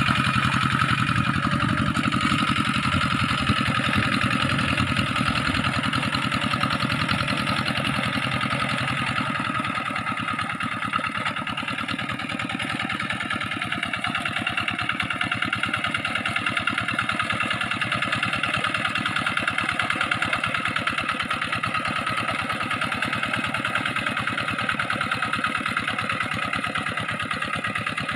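Two-wheel hand tractor's engine running steadily with a fast, even chugging as it works a flooded rice paddy. It grows a little fainter from about ten seconds in as the tractor moves away.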